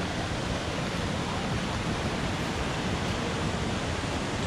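Steady rushing roar of a large waterfall, an even, unbroken wash of water noise.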